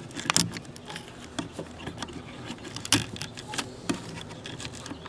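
Scattered light clicks and small rattles from the opened clock radio being handled, with a sharper knock near the start and another about three seconds in.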